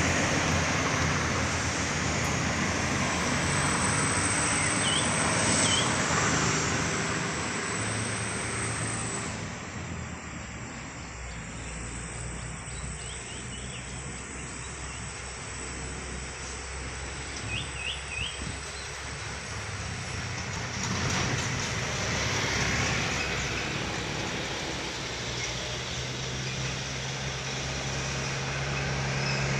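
Road traffic of heavy vehicles passing a bend: engine drone and tyre noise loud in the first several seconds, falling away to a quieter spell in the middle, then building again near the end as another heavy vehicle approaches.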